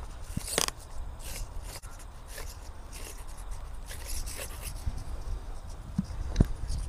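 Aileron servo of an Eachine Flying Fish foam RC plane crunching in a series of short, scratchy gear-grinding bursts, over a low rumble of wind on the onboard camera's microphone.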